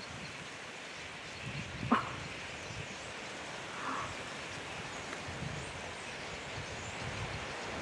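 A single sharp animal call, like a bark, about two seconds in, and a softer one about two seconds later, over a steady outdoor background hiss.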